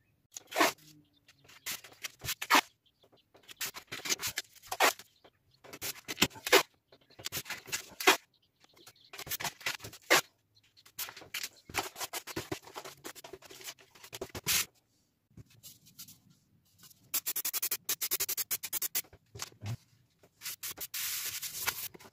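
Blue painter's tape being pulled off the roll, torn and rubbed down by hand onto a plywood board: short scratchy strokes with pauses between them, a fast crackling stretch of tape unwinding later on, and a steady hiss near the end.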